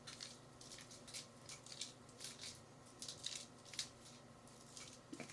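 Faint close-miked heartbeat, quickened by exercise: soft crackly beats about twice a second, with light skin and fabric rubbing on the microphone.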